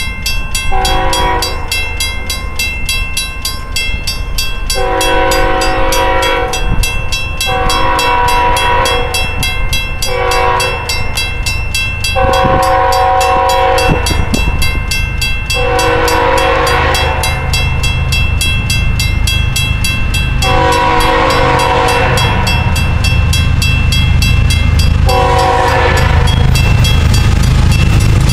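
Air horn of a GE Evolution-series (GEVO) diesel locomotive sounding about seven blasts for the grade crossing as the train approaches. Under the horn, the crossing signal bell rings steadily, and a low diesel rumble grows louder in the second half.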